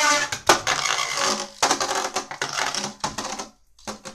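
Beyblade Burst top (Ogre O5) spinning and grinding across a plastic stadium floor: a dense, rattling scrape that breaks off about three and a half seconds in. A couple of short clicks near the end.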